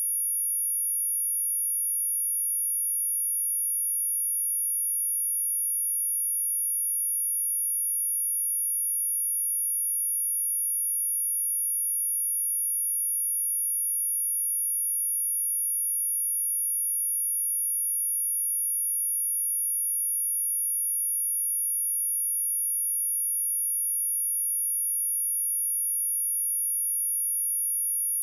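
A pure 10396 Hz sine-wave test tone, a single steady high-pitched whistle at constant loudness, used to test speakers and to vibrate water and dust out of them.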